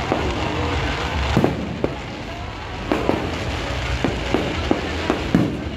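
Aerial fireworks bursting: an irregular series of sharp bangs, around ten in a few seconds, over a continuous low rumble and crackle.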